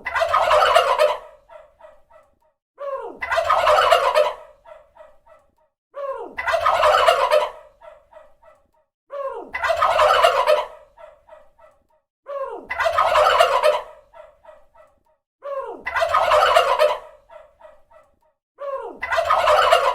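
Turkey gobbling, the same gobble repeating about every three seconds. Each gobble is a short falling note, then a loud burst about a second long, then a quick run of short clipped notes.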